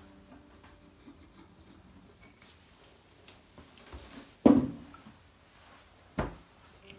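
Light clicks and rubbing of a Torx key and small screws being handled on the plastic housing of a DeVilbiss oxygen-concentrator rotary valve. A louder knock with a short ring comes about four and a half seconds in, and a sharp tap follows about a second and a half later.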